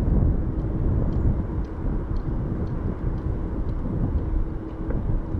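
Boeing 747-400's four GE CF6-80C2 turbofans running at power: a deep, steady jet rumble with a faint steady hum through it.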